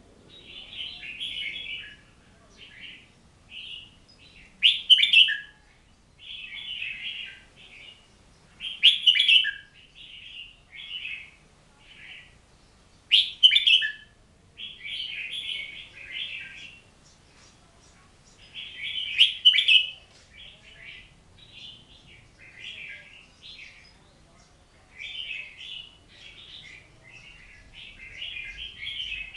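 A hwamei (Chinese melodious laughingthrush) singing a long, varied song of warbled phrases. Loud, sharp notes stand out every few seconds.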